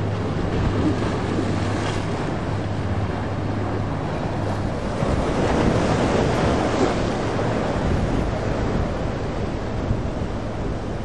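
Wind buffeting the microphone over waves and rushing water, with the low steady drone of a passing sportfishing yacht's diesel engines for the first few seconds. About five seconds in, the wash of water grows louder as a yacht's hull drives through the chop, throwing spray.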